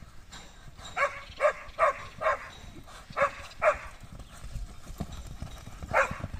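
A dog barking in short, sharp barks, about seven in all, mostly in quick pairs, over the hoofbeats of a galloping horse and a running steer on loose dirt.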